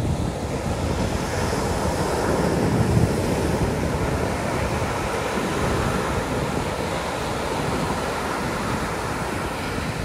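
Pacific Ocean surf: waves breaking and washing up over a sandy beach as a steady rush, swelling loudest about three seconds in.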